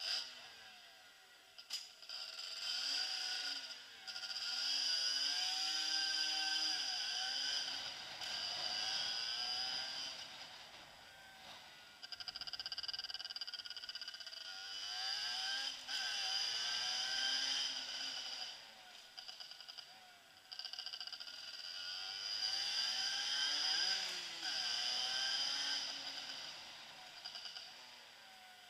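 Motorcycle engine revving up and falling back again and again as it rides, with a steady high-pitched whine over it in long stretches.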